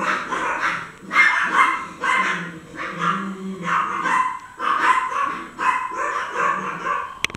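A dog's voice in repeated short bouts, about eight of them, each lasting under a second.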